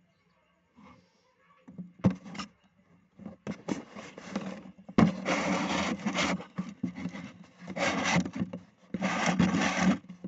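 Hand scraping and rubbing on the receiver's power supply board during the board swap, in several bursts of one to two seconds; the longest and loudest come near the middle and near the end.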